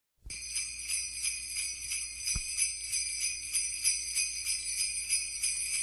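Sleigh bells shaken in a steady rhythm, about three shakes a second, starting just after a moment of silence: the recorded intro of a Christmas song.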